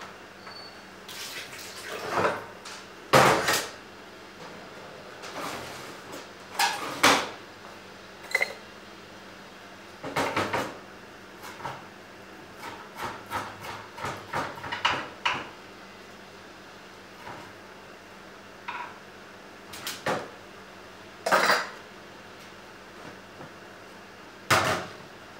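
Kitchen pots, dishes and metal utensils clinking and knocking now and then, in irregular sharp strikes, the loudest a few seconds in.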